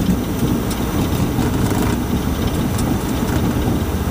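MD-80 takeoff roll heard in the cockpit: the rear-mounted Pratt & Whitney JT8D engines at takeoff thrust and the gear rolling on the runway make a loud, steady low rumble. A few faint knocks come through it.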